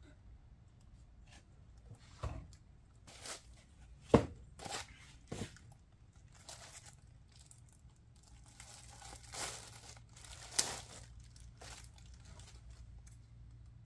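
Clear plastic bag crinkling and rustling in short, irregular bursts as a car stereo head unit is pulled out of its bag and foam packing. A single sharp knock comes about four seconds in.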